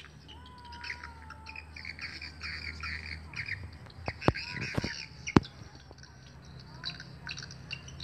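Swiftlets twittering in rapid, high chirps around a swiftlet house. A low hum runs underneath, and three sharp clicks come around the middle, the last of them the loudest.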